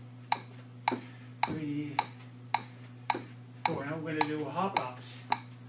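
Metronome ticking steadily at a little under two clicks a second, setting the pace for the step-ups. A man's voice is heard briefly twice over it, with a low steady hum underneath.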